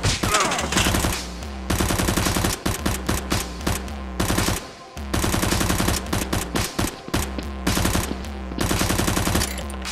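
Automatic-gunfire sound effect dubbed onto a staged shooting: several bursts of rapid fire, each about a second long with short gaps, over a steady low hum.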